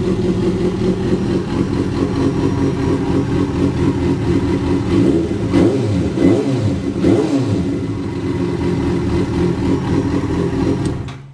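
Yamaha FZ6's 600 cc inline-four idling through an aftermarket LeoVince Evo II SBK carbon-fibre dual exhaust, given a few quick throttle blips around the middle, then shut off near the end.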